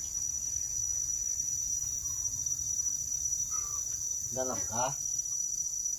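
Insects keeping up one steady, high-pitched drone, with a short burst of human voice a little past the middle.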